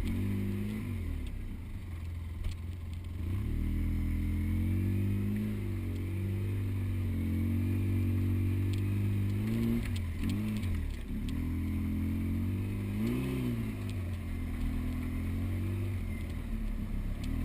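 Polaris RZR side-by-side's engine running and working over rough ground, its revs easing off and picking back up several times.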